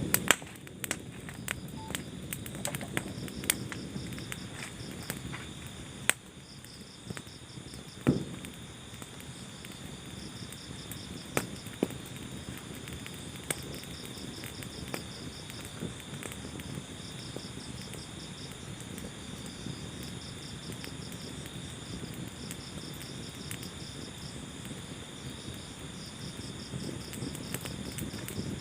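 Wood fire crackling over a low rumble of flames, with scattered sharp pops, the loudest about six and eight seconds in. Behind it, insects chirp in evenly repeated trills.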